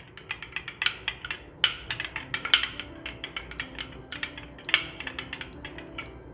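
A spoon clicking and scraping against a glass bowl in quick, irregular strokes as thick yogurt raita is stirred. Faint background music with held notes comes in about three seconds in.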